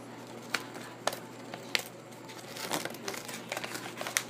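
Blue-and-gold macaw tearing and crumpling paper with its beak: irregular sharp rips and crinkles, coming thicker in the last second and a half.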